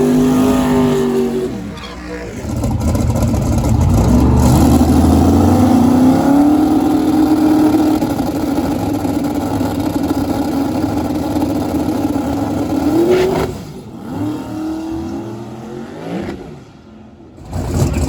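Drag-racing car engine running at high revs, its pitch holding steady for several seconds, then rising briefly and cutting off about thirteen seconds in. Shorter engine revs follow.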